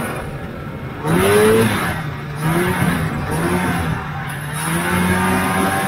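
1977 Polaris TX340 snowmobile's two-stroke engine revving hard about a second in, easing off, picking up again, then holding at higher revs.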